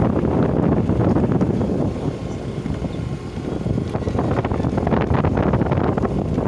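Wind buffeting a phone microphone on a motor scooter riding at speed, a dense, gusty rush with the scooter's running engine and tyres underneath. It eases a little about two seconds in, then grows gustier again.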